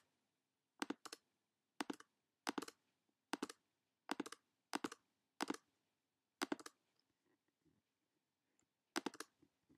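Faint clicking of computer controls: about ten short clicks, many of them doubled like a press and release, spaced under a second apart, then a pause of about two seconds before one last click near the end.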